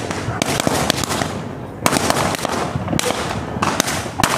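Firecrackers going off in quick, irregular strings of sharp cracks in a burning New Year's effigy, with a short lull about a second and a half in before the bangs pick up again.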